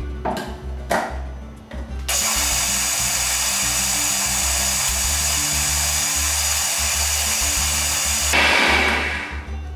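Electric food processor motor running steadily, mixing flour and baking powder into cake batter. It starts about two seconds in, gets briefly louder near the end as the knob is turned, then winds down. Background music plays underneath.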